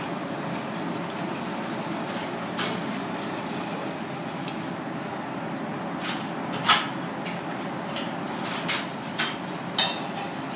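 Knife filleting a fish on a plastic cutting board: sharp clicks and taps of the blade against board and bone, a few at first and then several in quick succession from about six seconds in, over steady background noise.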